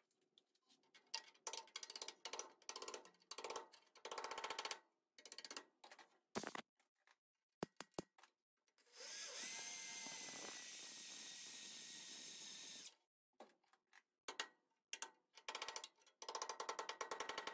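Pneumatic air hammer (air chisel) hammering sheet metal in short rapid bursts while panel metal is peeled back and welds are popped loose. In the middle there is a steady hiss of air lasting about four seconds.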